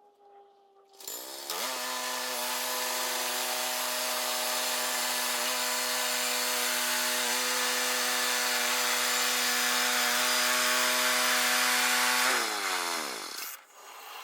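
A power saw winds up quickly about a second in, runs steadily through a cut with a strong hissing cutting noise for about eleven seconds, then its motor winds down in falling pitch and stops.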